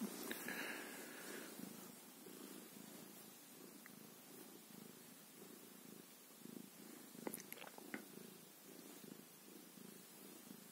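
Tabby cat purring steadily and faintly while being stroked, with a few light clicks about two-thirds of the way through.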